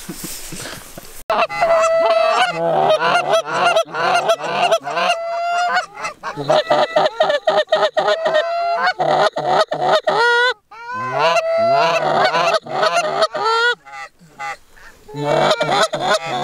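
Canada goose calls blown hard and fast, a dense run of overlapping honks and clucks that starts suddenly about a second in, with a short break near the ten-second mark.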